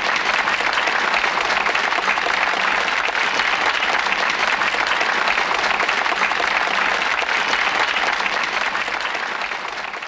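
A crowd of guests applauding steadily with a dense patter of clapping, tapering off near the end.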